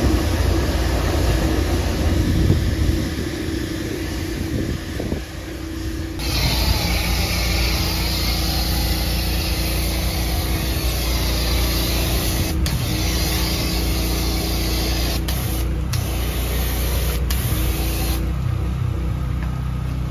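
Pressure washer spraying a car, a loud steady hiss that starts about six seconds in and stops about two seconds before the end, over a steady low motor hum.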